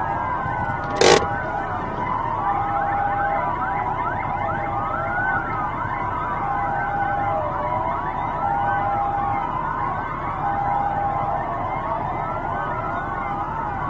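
Several police vehicle sirens wailing at once, their rising and falling tones overlapping, with a steady tone about a second long that repeats every two seconds. A single sharp bang about a second in is the loudest sound.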